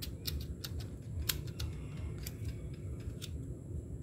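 Light, irregular metallic clicks and taps of a small tool and parts being handled against a motorcycle engine's crankcase, about a dozen over four seconds, over a low steady hum.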